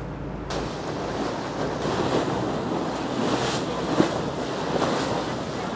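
Water rushing and splashing past a moving motorboat's hull, with wind buffeting the microphone. About half a second in the rush starts and covers the engine's low hum, with a single sharp splash or slap about four seconds in.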